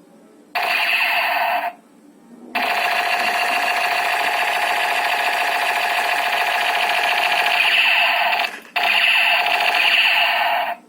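Toy shotgun's electronic sound effect through its small speaker: a thin, steady electronic sound in three bursts, a short one about half a second in, a long one of about six seconds, and another of about two seconds near the end.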